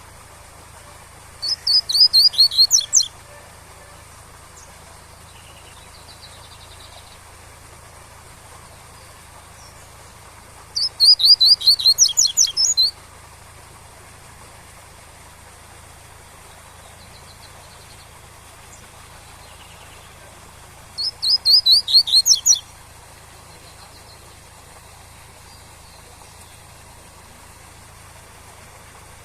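Coleiro (double-collared seedeater) singing its 'tui-tui' song: three loud phrases about ten seconds apart, each a rapid string of high notes lasting a second or two. A faint steady rush of waterfall runs underneath.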